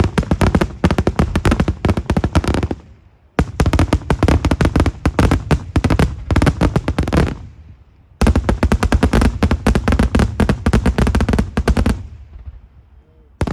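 Daytime fireworks going off in three long volleys of rapid, closely packed bangs, each lasting about four seconds with brief pauses between, followed by a single bang near the end.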